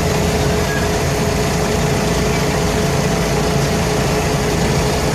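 Mercedes-Benz O345K articulated bus's OM447hLA six-cylinder diesel running steadily at constant revs, a low drone with a steady whine over it. The bus's exhaust is burst (leaking).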